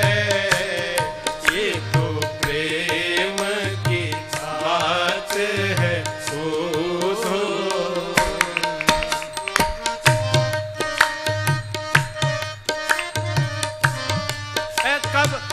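Instrumental interlude of a Hindi devotional bhajan: hand drums keep a steady beat under a gliding melody line and a held drone note.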